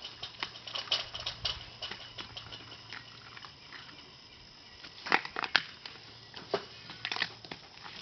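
Saluki puppy pawing and chewing in dry leaves and grass: irregular crackling and rustling, with a few louder sharp rustles a little after five seconds in and again about seven seconds in.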